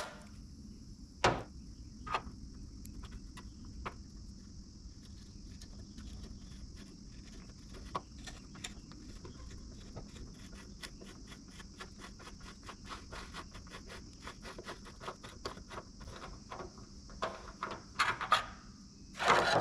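Irregular small clicks and knocks of hand tools on metal, over a steady high hiss, with a few louder knocks about a second in and near the end.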